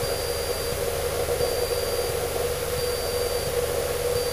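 Cessna 152's Lycoming O-235 four-cylinder engine and propeller droning steadily in cruise, heard from inside the cabin, with a thin high beep repeating about every second and a half.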